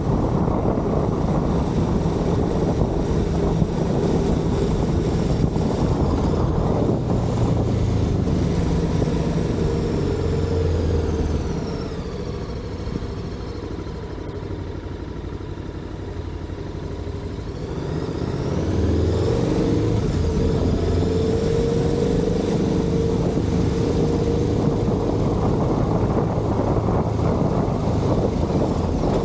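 Motorcycle engine running under way, with wind rushing past. About ten seconds in the engine note falls and quietens as the bike slows, then climbs again about eighteen seconds in as it speeds back up.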